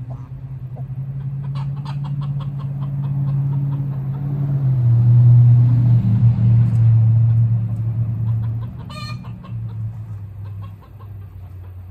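A low engine drone swells to its loudest about halfway, drops a little in pitch and fades, like a motor vehicle going past. Chickens cluck over it, with one short loud call about nine seconds in.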